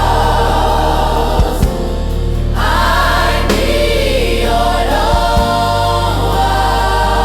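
Gospel choir singing over instrumental backing. Long held notes sit over a steady low bass line, which moves to new notes twice.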